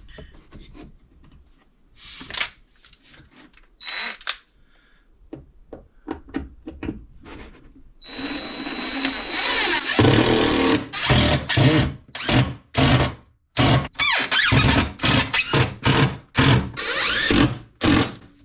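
Power drill driving screws to fasten wooden support boards back in place. A few seconds of scattered handling knocks come first. From about eight seconds in, the drill runs in one longer spell with a whine, then in a quick series of short bursts.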